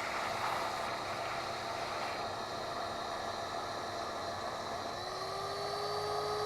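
Electric pressure washer running with a steady hiss and hum. About five seconds in, a steady whine starts and rises slightly before holding. The pump is not yet getting water, probably because of air in the hose.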